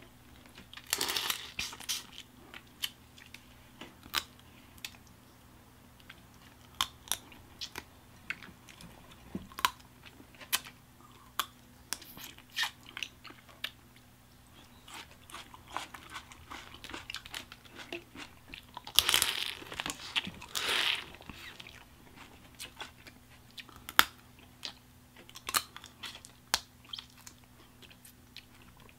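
Close-up eating sounds of boiled crawfish: shells cracked and peeled by hand, with chewing and biting, heard as a string of sharp, irregular cracks and clicks. A few longer rustling bursts stand out about a second in and again about two-thirds of the way through, the loudest there.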